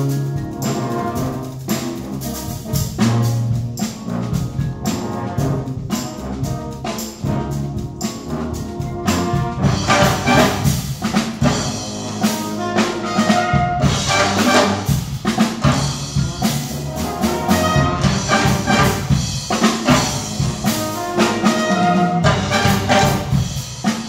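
Batterie-fanfare band playing a concert piece: sustained brass chords over steady drum strokes, the full ensemble growing louder and brighter about ten seconds in.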